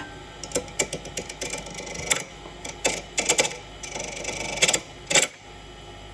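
Irregular series of sharp clicks and knocks from work on a wood lathe, with louder knocks about three seconds in and again near five seconds; the turning is going wrong.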